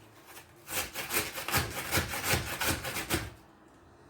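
Cabbage being grated by hand on a metal grater: a rapid run of about ten rasping strokes, roughly four a second, that stops a little after three seconds in.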